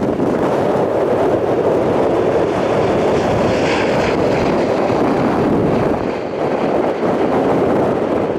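Airbus A220-300's Pratt & Whitney geared turbofan engines running in a steady loud roar, with a fainter higher whine rising over it for a couple of seconds midway, mixed with wind buffeting the microphone.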